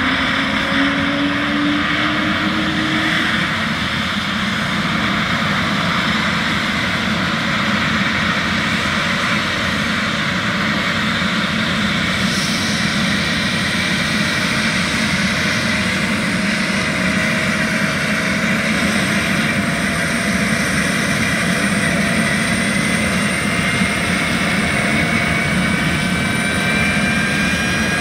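Eurocopter EC155 medical helicopter's twin turboshaft engines running up during start-up: a steady rush with a thin turbine whine that climbs slowly in pitch over the last several seconds.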